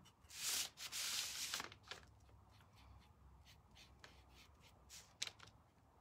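A small paintbrush working paint into a thin laser-cut wooden panel: faint, scratchy brushing and dabbing, with a louder rubbing rustle in the first second or so and a sharper click about five seconds in.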